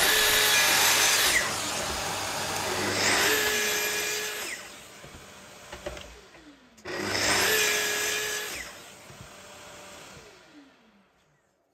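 Festool plunge track saw making three cuts for dovetail pins in coloured MDF. Each time the motor runs up to a steady whine, cuts, and then winds down with a slowly falling pitch; the last run-down fades out near the end.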